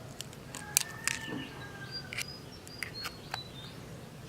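A few light clicks and taps of eggshell and bowl as an egg is cracked in for batter, with faint bird chirps in the background.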